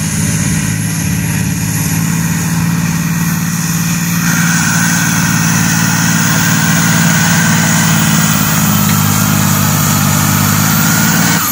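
John Deere diesel tractor pulling a weight-transfer sled under heavy load, its engine running steadily at full throttle. A high whine joins about four seconds in, and the engine sound falls off sharply at the very end.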